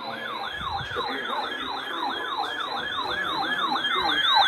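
Electronic yelp siren sweeping up and down fast, about three cycles a second, as part of an emergency alert broadcast.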